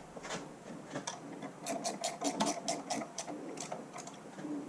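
Socket ratchet wrench clicking in quick runs as bolts are turned down, several clicks a second with short pauses between strokes.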